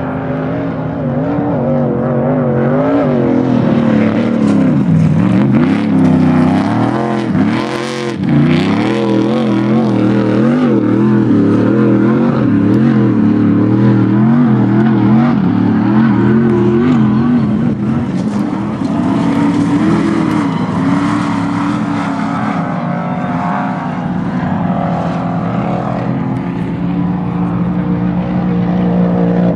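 Off-road desert race truck's engine revving hard, its pitch rising and falling quickly with the throttle as it races over rough desert track, with a brief burst of noise about eight seconds in.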